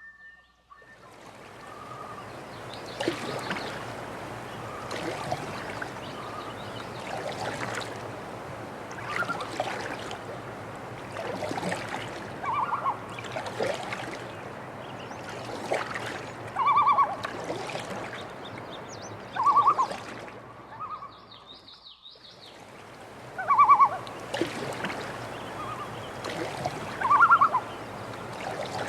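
Water splashing and trickling with regular strokes about every one and a half seconds, typical of canoe paddling, with birds giving short, loud honking calls five times.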